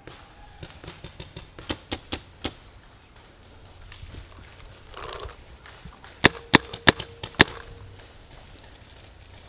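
Paintball marker firing a quick string of loud, sharp shots over about a second, more than halfway through, after a few fainter pops of markers around two seconds in.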